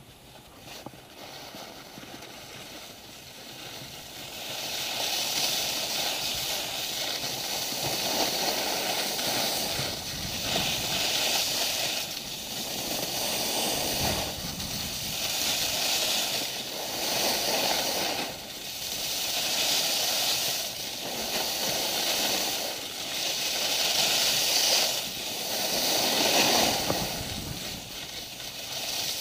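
Skis hissing and scraping over packed snow through a series of turns, quieter at first, then louder from about four seconds in, swelling and fading about every two seconds.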